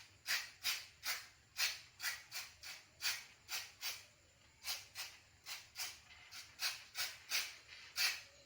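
Rhythmic rubbing or scrubbing strokes, two to three a second, each a short hiss, like hand work on a part during a brake service.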